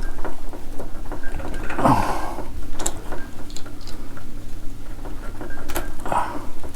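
Small clicks, ticks and rustles of hands handling a motorcycle's wiring loom and its connectors, over a steady low hum.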